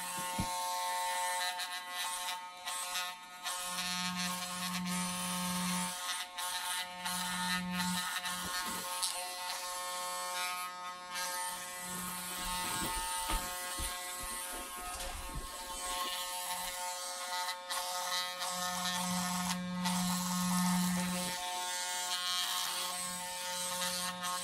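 Electric hair clippers buzzing steadily while cutting hair. A deeper hum swells for a couple of seconds about four seconds in and again near the twenty-second mark.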